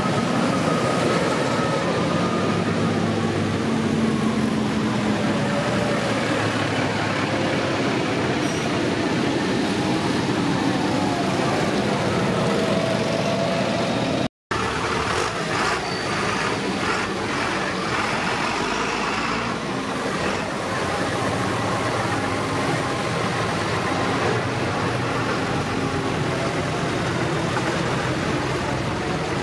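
Diesel engines of big farm tractors running as they drive past one after another, a JCB Fastrac first and later a John Deere and a New Holland. The sound drops out for an instant about halfway.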